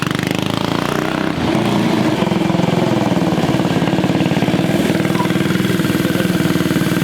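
Mini bike's Tillotson 225 single-cylinder four-stroke engine running steadily under way. The engine note dips slightly about a second in, then holds an even pitch.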